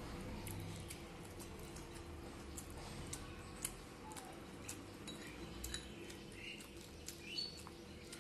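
Eating by hand: scattered small clicks and soft wet mouth sounds as fingers pick at food on a plate and the food is chewed.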